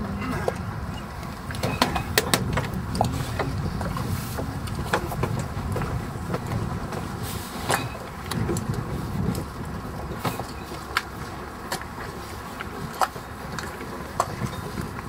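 Steady low rumble with scattered sharp knocks and clicks of people walking and handling gear on a wooden marina dock.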